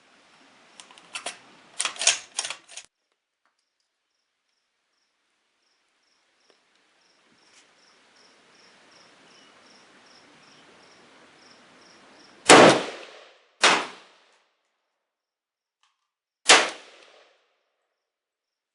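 Three rifle shots from a 1987 Yugoslav SKS Model 59/66A1 in 7.62x39: two about a second apart, the third some three seconds later. About a second in come a few quick metallic clicks, typical of the rifle being handled.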